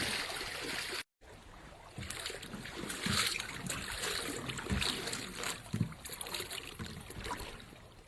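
Small stream water trickling and splashing, with scattered knocks and low thumps from handling at the water's edge. The sound cuts out completely for a moment about a second in.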